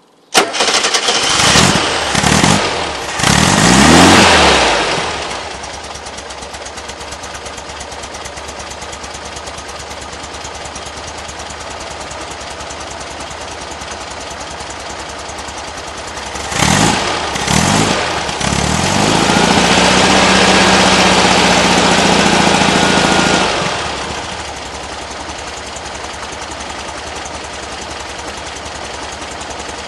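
1975 Volkswagen Type 2's air-cooled flat-four engine comes in suddenly about half a second in and is revved a few times, then settles to a steady idle. About two-thirds of the way through it is blipped twice and held at higher revs for a few seconds, then drops back to idle.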